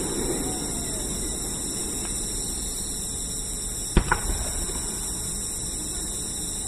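A firework burst about four seconds in: one sharp bang followed by a couple of smaller pops. Between bursts there is a steady background hiss.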